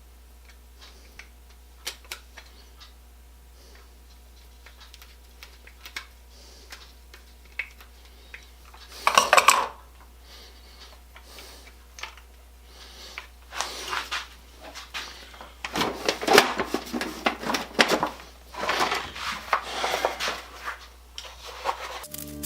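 Hard objects, likely metal clamp parts, clinking and clattering as they are handled. It starts with scattered single clicks, then a short loud scrape, then a busier run of clinks and rattles near the end.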